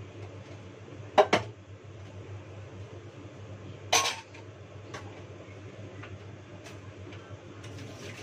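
Dishes and a steel pot clinking and clattering as they are washed and set down at a kitchen sink: two sharp clinks about a second in and a louder clatter about four seconds in, with a few light taps after. A steady low hum runs underneath.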